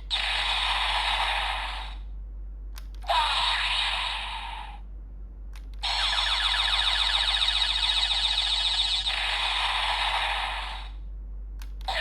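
Bandai DX GUTS Sparklence toy transformation device from Ultraman Trigger playing its electronic sound effects through its small speaker, three bursts with short gaps between them, the third with a fast repeating rattle.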